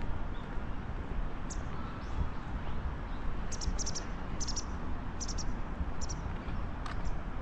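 Small bird chirping, a few short high chirps in quick clusters, over a steady low rumble.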